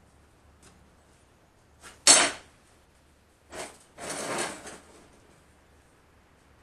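Steel clanking on a steel welding table: one sharp, loud clank about two seconds in, a lighter knock, then a short scraping rattle of metal on metal.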